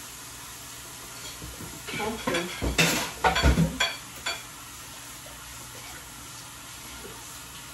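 Forks clinking and scraping against dinner plates for a couple of seconds, a quick run of clicks and scrapes over a steady background hiss.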